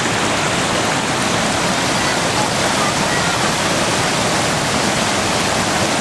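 A creek in full spate, rushing loudly over rocks and a waterfall, as a steady, dense roar of water that does not change.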